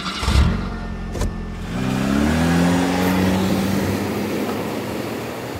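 An engine revs up, its pitch rising for about a second and then holding steady as it fades, over a steady rushing noise. There is a sharp click about a second in.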